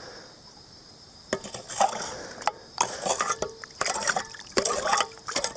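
Stones clicking and knocking against each other as a rocky riverbed is dug into, with water sloshing. It is fairly quiet for about the first second, then comes a run of sharp knocks.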